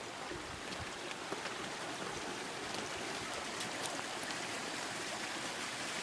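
Steady rush of a shallow creek running over beach rocks, with a few faint footsteps on gravel in the first second or two.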